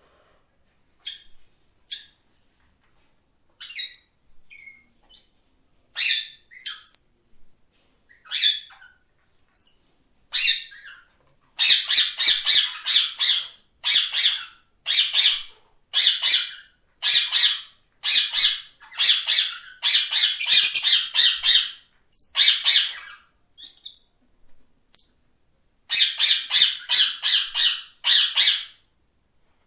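Parrot calling: a few scattered short calls at first, then, from about a third of the way in, long runs of rapid repeated calls with short gaps between them.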